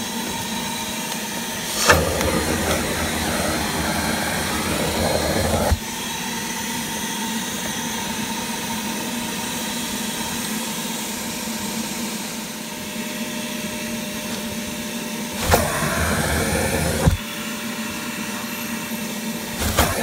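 HART 6-gallon stainless steel wet/dry shop vac running, its floor nozzle sucking dirt off car floor carpet: a steady motor whine over a rush of air. The sound grows louder and fuller twice, about 2 to 6 seconds in and again around 15 to 17 seconds in, each change set off by a sharp click.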